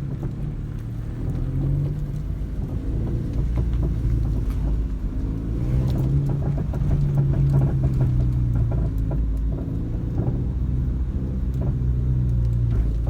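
2010 Mazda 3 being driven with its engine running steadily, and a run of short knocks and rattles through the middle stretch from the front suspension while turning. The noise comes from the left front, and the owner puts it down to a worn sway bar end link.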